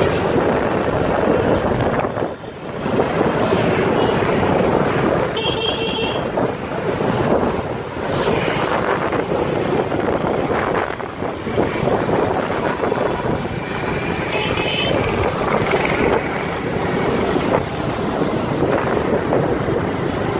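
Wind buffeting the microphone on a moving motorcycle, with the bike's engine and road noise running underneath. Two short high-pitched tones sound partway through.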